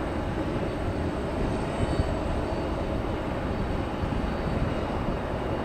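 Airbus A321-200 jet airliner rolling out on the runway just after touchdown: a steady low rumble of its engines heard from afar.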